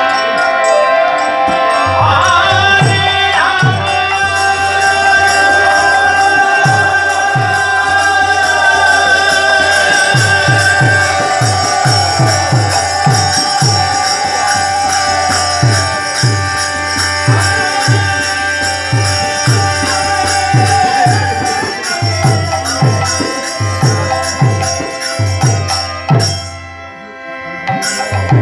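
Devotional kirtan music: a violin and bamboo flute play a sustained, gliding melody over regular hand-drum strokes and jingling hand cymbals. The music drops away briefly near the end, then resumes.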